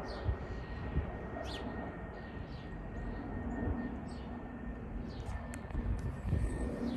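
Low, uneven rumble of a Swiss Airbus A220-100 jet airliner passing high overhead on its Pratt & Whitney PW1500G geared turbofans, with a few short bird chirps over it.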